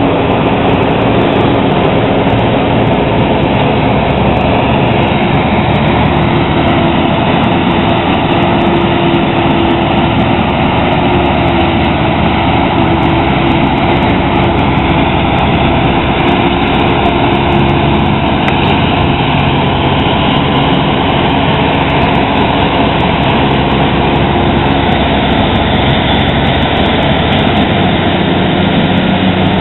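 Self-propelled forage harvester and tractors harvesting maize, a loud continuous machinery noise with a steady engine hum.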